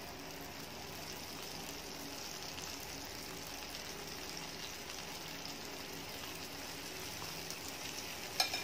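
Wheat-flour malpua batter frying in hot oil in a pan: a steady, quiet sizzle and bubbling as the ladled batter spreads, with a short click near the end.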